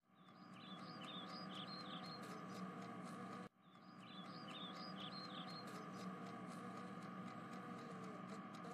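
Faint background ambience loop of an animated scene: a steady hum with a handful of high, quick chirps. It cuts out at the scene change about three and a half seconds in, then fades back in and repeats the same chirps.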